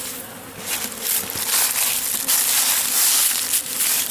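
Digging in soil and roots: a dense run of crunching and scraping that gets louder about a second in.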